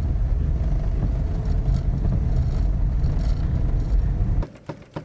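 Fiat Strada driving, a heavy low rumble of road and wind noise, which cuts off suddenly about four seconds in.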